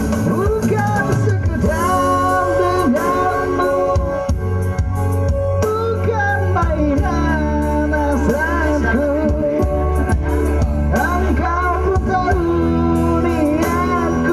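A song: a voice singing a wavering melody over guitar and bass accompaniment.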